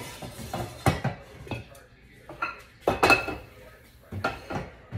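Metal pots and pans clanking as they are moved around on a gas cooktop's grates: a run of separate knocks, one about three seconds in ringing briefly, and a heavier thud at the very end.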